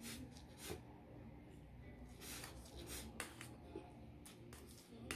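A person eating pancit canton instant noodles with a fork: a string of short slurping and chewing sounds, with the fork working against the plate.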